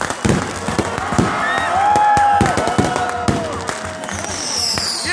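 Fireworks going off: dense crackling and popping bangs from firecrackers and aerial shells, with a high falling whistle near the end.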